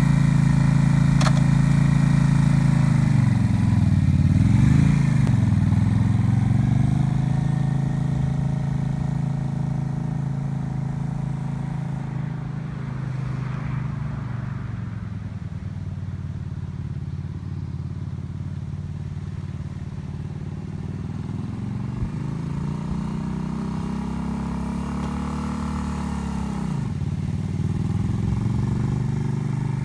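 Suzuki Intruder 125's small air-cooled V-twin engine running close by. A click comes about a second in, the revs dip and rise as the bike pulls away, and the engine note then fades into the distance. Near the end the engine revs up and drops off sharply as the bike rides back past.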